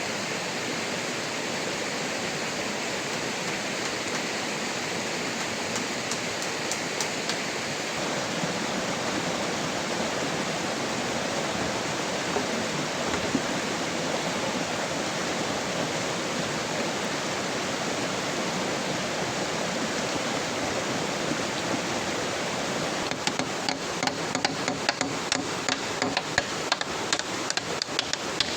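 Steady rushing water noise of heavy rain and flowing water. Near the end, a quick run of sharp taps or knocks starts over it, several a second.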